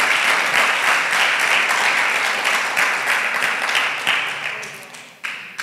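Congregation applauding, many hands clapping at once, dying away about five seconds in.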